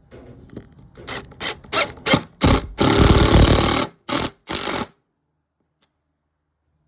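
Power drill boring a pilot hole in wood to keep it from splitting: several short bursts, one longer run of about a second, then two more short bursts, stopping about five seconds in.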